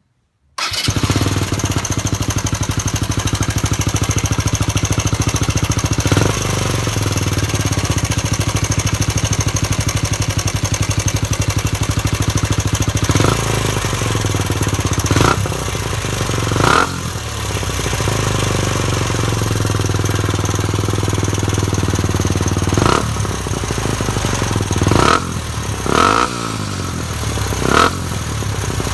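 Suzuki GS125E's single-cylinder four-stroke engine, breathing through a Yoshimura aftermarket silencer, starts suddenly about half a second in and settles into a steady idle. It is blipped briefly about eight times, with the rev rises coming more often in the second half.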